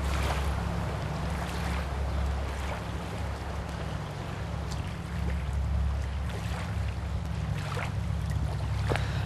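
Windy seashore ambience: a steady low rumble of wind on the microphone over an even hiss of wind and water, with a few faint clicks.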